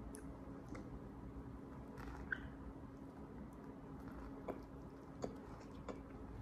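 Faint chewing and biting of a fried-chicken burger, with a few soft, scattered mouth clicks.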